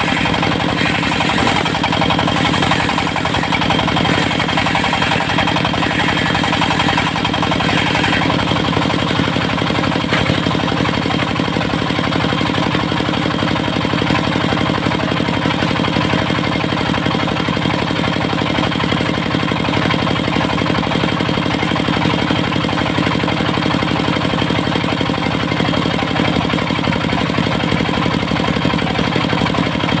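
Diesel engine of a portable circular sawmill running steadily, with a higher noise coming and going over the first eight seconds or so.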